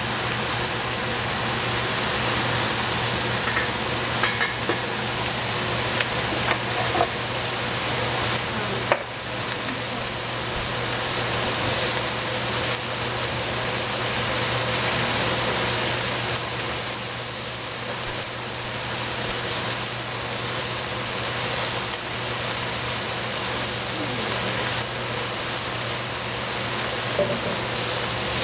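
Food sizzling steadily in a covered frying pan on the stove, with a low steady hum underneath and a few faint ticks.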